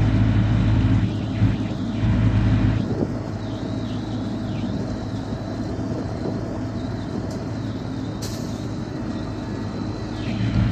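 Heavy wrecker tow truck's engine running while its boom holds a car, with a low steady hum that gives way to a broader, flatter mechanical noise about three seconds in. A short hiss comes about eight seconds in.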